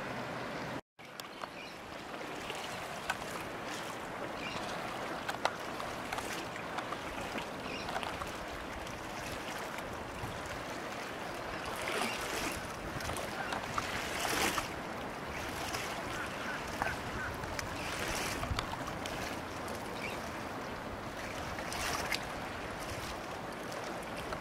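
Small waves lapping and splashing in a steady wash of water and wind, with wind noise on the microphone. The sound cuts out briefly about a second in.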